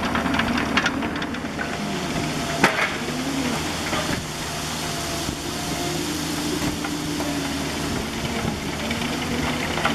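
Bobcat E50 mini excavator's diesel engine running under working load, its pitch wavering as the hydraulics load and unload, with a single sharp clank about a third of the way in.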